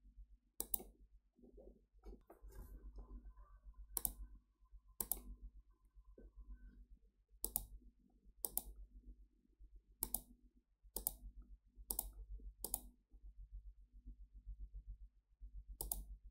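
Computer mouse button clicking, about ten single clicks at irregular intervals of one to four seconds, over a faint low hum.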